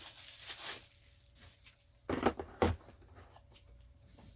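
Handling of unboxed parts and plastic packaging: a short rustle, then two knocks about half a second apart as pieces are set down.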